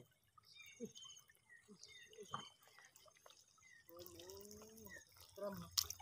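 Faint trickling and dripping of shallow water running over rocks, with a single sharp knock just before the end.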